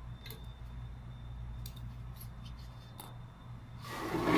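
A few light clicks as the trampoline's enclosure pole and its bracket are handled, then near the end a loud rustling scrape as the padded frame cover is grabbed and pulled.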